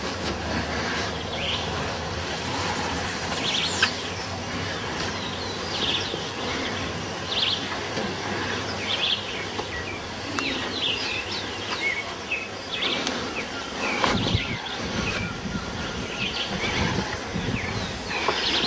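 Birds chirping in short, repeated calls over a steady outdoor background hiss, with louder rustling from about fourteen seconds in.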